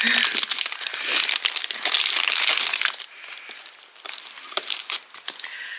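Crinkly packaging of nursing pads being handled, a dense crackling that is loudest for about the first three seconds and quieter after.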